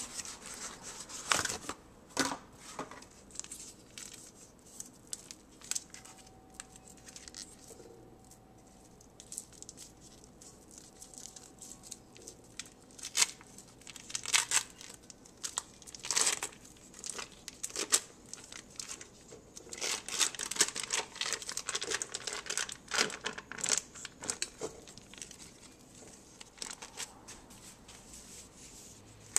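Foil wrapper and cardboard box of a block of cream cheese crinkling and tearing as it is unwrapped by hand, in scattered bursts of crackles with quieter gaps between.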